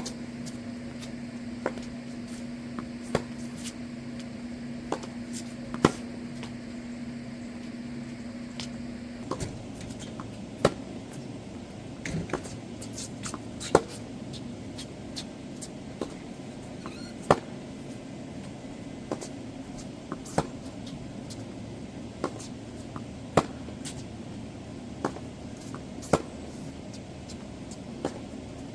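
Tennis balls struck by rackets in a rally, a sharp pop every second or two. A steady low hum runs under the first third and then stops.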